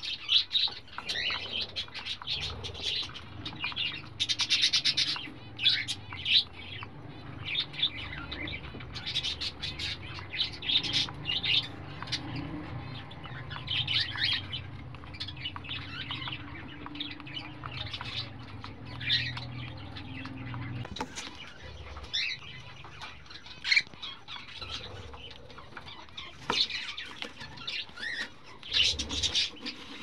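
Week-old cockatiel chicks giving rapid, repeated raspy begging calls while being fed by an adult cockatiel.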